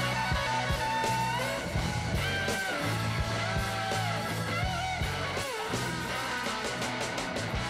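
Background music with guitar, its notes sliding up and down in pitch over a steady bass line and beat.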